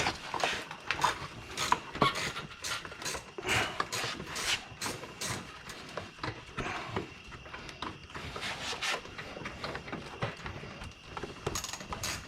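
Hand tools working on plastic bumper parts: irregular clicks, knocks and scraping as screws and clips are undone and pieces pried apart.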